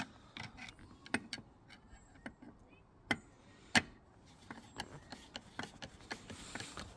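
A screwdriver turning a steel screw in a Unistrut joint coupler inside Unistrut channel, making scattered, irregular metallic clicks and ticks, a few of them sharper. The screw is being driven to lift the coupler up into the channel.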